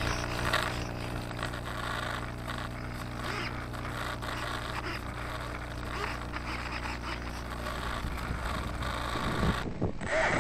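Rustling, scraping handling and wind noise over a steady low hum, picked up by the model plane's onboard camera microphone. Near the end the sound cuts and the plane's electric motor begins to spool up with a rising whine.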